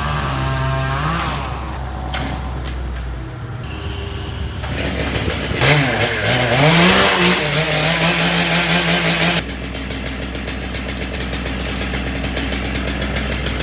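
A chainsaw revving up and down, loudest through the middle, then held at a steady pitch before cutting off suddenly, over a steady low engine drone.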